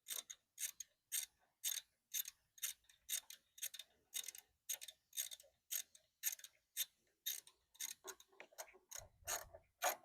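Ratchet wrench clicking in a steady run, about two or three clicks a second, as the small 8 mm ignition coil mounting bolts on a mower engine are snugged down after gapping the coil to the flywheel magnet.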